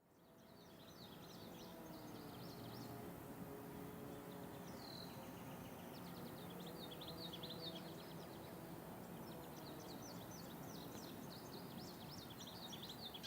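Birds chirping in short repeated calls, with faint distant outdoor warning sirens wailing low and slowly rising and falling underneath.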